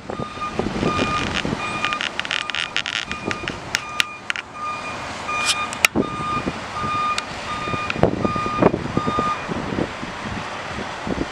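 Backup alarm of a hi-rail truck on the track, beeping steadily on and off and stopping about nine seconds in. Gusty wind and vehicle rumble run underneath, with a few sharp clicks.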